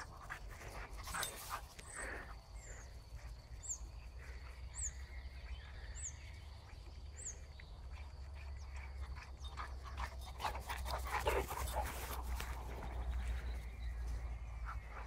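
Labrador retriever panting faintly, over a steady low rumble. Short high chirps repeat about once a second through the first half.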